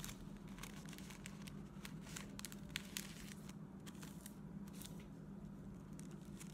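Tissue paper crinkling in soft, scattered crackles as it is folded back and forth into fan pleats and each fold pressed flat against a tabletop.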